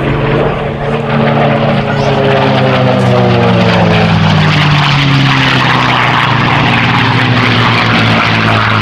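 P-51 Mustang's Merlin V-12 engine at high power on a fast pass. Its pitch falls steadily over the first five seconds or so as the plane goes by, then it holds a steady loud drone.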